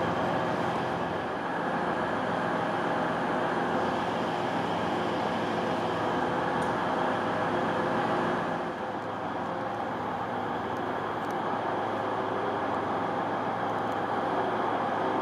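Class 185 diesel multiple unit standing at a platform with its engines idling: a steady, even hum with a slight dip in loudness about two thirds of the way through.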